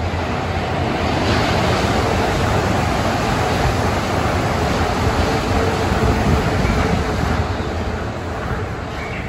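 Tokyo Monorail train running past the platform on its rubber tyres: a loud, steady rush of running noise with a faint steady whine in it, easing slightly near the end.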